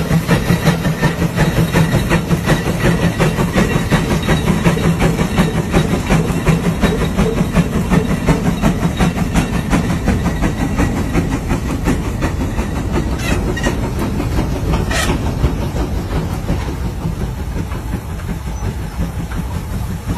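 Case steam traction engine working under load as it pulls a gang of plows, its exhaust chuffing in a fast, even beat. There is a short sharp click about fifteen seconds in.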